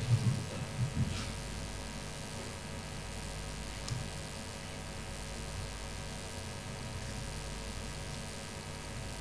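Steady electrical mains hum and hiss, with a few low thumps in the first second and a faint click about four seconds in.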